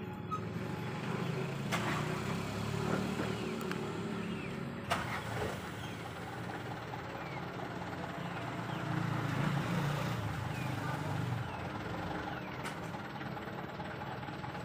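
A steady low engine hum, as of a motor vehicle idling, with faint short bird chirps and two sharp clicks, one about two seconds in and one about five seconds in.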